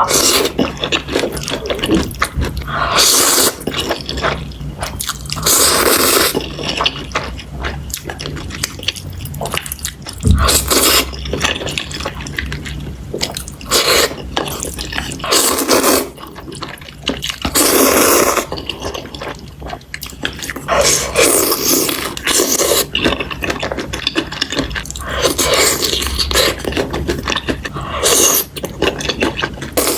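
Kitchen sounds in repeated bursts of a second or two: liquid being poured or dripping, and utensils scraping.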